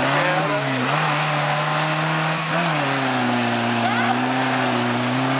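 Suzuki Samurai's engine running hard under load as the 4x4 churns through deep mud, the revs held steady with brief dips about a second in and again about two and a half seconds in.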